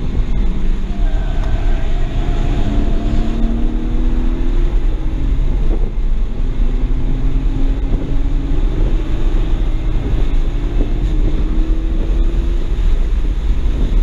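BMW 335i's N54 twin-turbo inline-six heard from inside the cabin under acceleration on track, its pitch climbing slowly, dropping about five seconds in, then climbing again. Heavy road and wind noise runs underneath.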